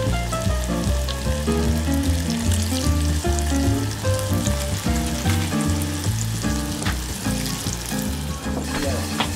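Breaded perch fillets deep-frying in a small saucepan of hot oil: a steady sizzle with scattered pops, over background music with a bass line.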